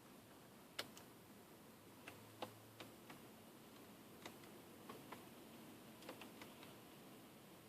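Near silence with about ten faint, irregular small clicks, the sharpest about a second in.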